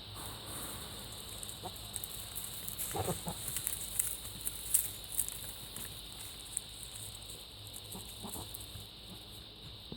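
A goat giving a brief, quiet call about three seconds in, with faint clicks and rustling around it.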